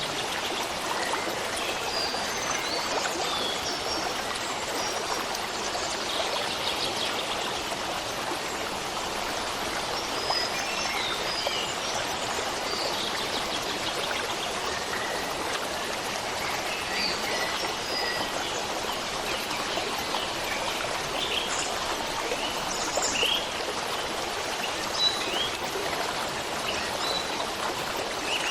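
Steady rush of a running stream, with small birds chirping briefly here and there over it.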